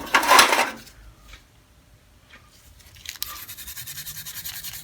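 Metal hand tools being handled: a short, loud clatter of wrenches at the start, then, a little after halfway, a fast rhythmic rasping scrape lasting about a second and a half.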